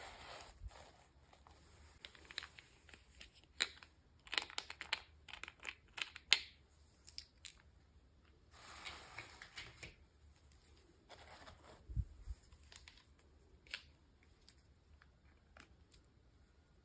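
Packaging handled and opened by hand: short crinkling and tearing rustles mixed with scattered sharp clicks and taps, and one dull thump about twelve seconds in.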